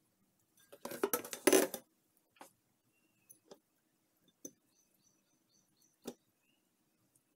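A ceramic plate clatters for about a second as it is set down in a stainless steel sink. After that come a few single light taps as gutted anchovies are dropped onto it.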